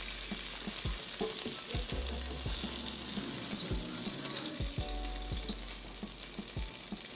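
Hot Italian sausages sizzling as they pan-fry in oil, with short knocks and scrapes of silicone-tipped tongs against the pan as the browned links are turned and lifted out.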